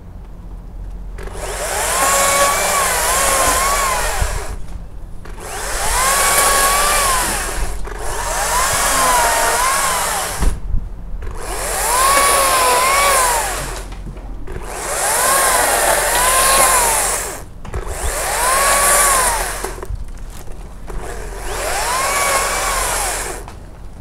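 Makita top-handle battery chainsaw whining in seven trigger bursts of two to three seconds each, with short pauses between them. Its pitch rises and dips within each burst.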